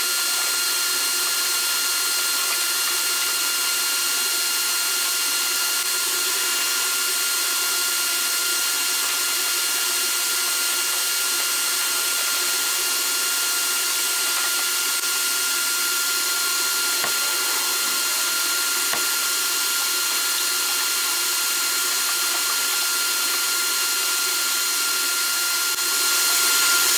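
Shop vac running steadily in blowing mode, its motor whining at a constant pitch as it blows air through a taped-on hose into the dryer drum to push out lint. Two faint knocks come about two-thirds of the way through.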